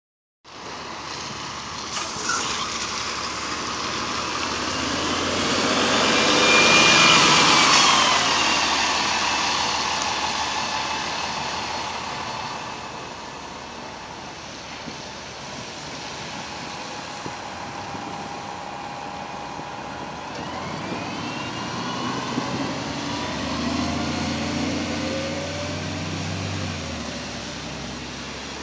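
New Flyer D40LFR diesel transit bus pulling away and passing close, its engine running with a whine that glides in pitch as it accelerates. It is loudest about six to eight seconds in, fades as it drives off, and a rising whine comes again from about twenty seconds in.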